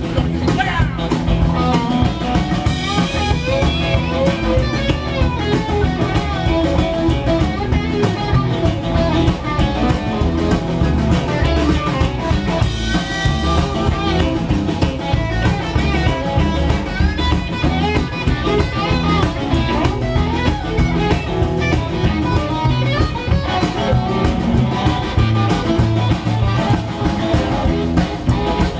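Live blues band playing an instrumental passage: electric guitars over upright double bass and drum kit, with a steady beat.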